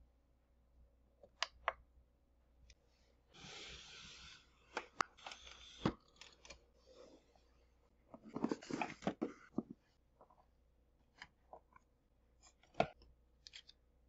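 Quiet handling noises: scattered light clicks and knocks, with two stretches of rustling, about three seconds in and again about eight seconds in.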